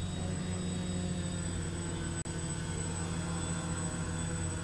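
Steady droning hum of a quadcopter's electric motors and propellers in flight, over a constant hiss and a thin high whine, with a momentary dropout about two seconds in.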